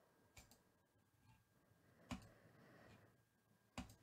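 Computer mouse button clicking three times, sharp clicks about a second and a half apart, over faint room tone.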